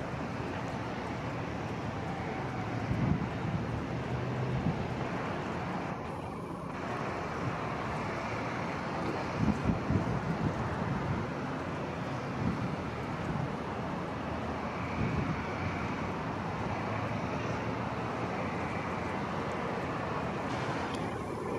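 Steady road traffic noise, swelling louder a few times as vehicles pass.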